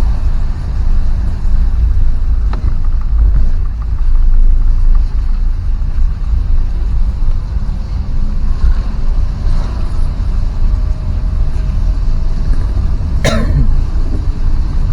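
Steady low rumble of a vehicle on the road, with heavy wind and road noise on the microphone. There is one sharp knock about 13 seconds in.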